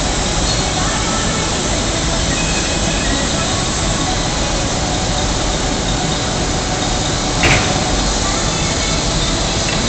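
Steady loud roar of a glass furnace and its blowers in a glassworks, with a brief sharp clink about seven and a half seconds in.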